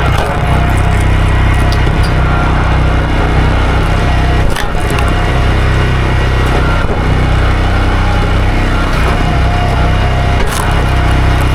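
Two-stroke chainsaw running steadily under load, cutting into a wooden stump, with a couple of sharp cracks about four and a half and ten and a half seconds in.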